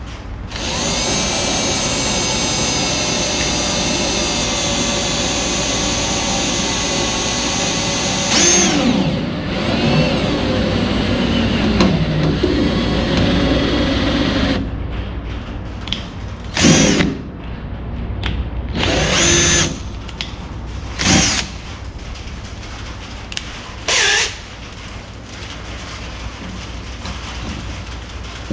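Power drill running: a steady high-speed whine for about eight seconds, then its speed wavers for several seconds, then four short bursts in the second half, as holes are drilled and screws set in the car's upper trunk filler panel.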